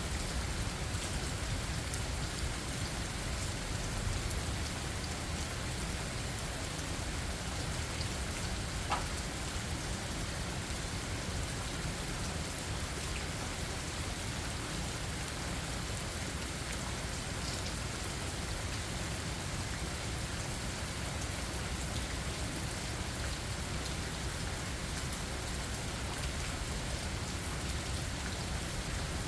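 Steady rain falling, an even hiss with one small tick about nine seconds in.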